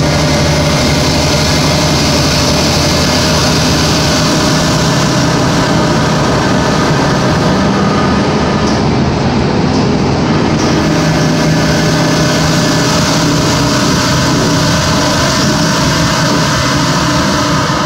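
Orion VII 3G transit bus engine running very loud and struggling: a steady low drone with a hiss over it that does not let up. The uploader suspects a turbo problem.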